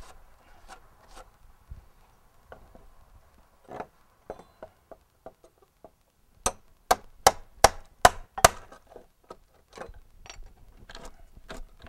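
A hammer striking a steel cat's paw nail puller driven into a rotten wooden fence board: six sharp, quick taps a little past halfway, with lighter knocks and clicks of the tools before and after.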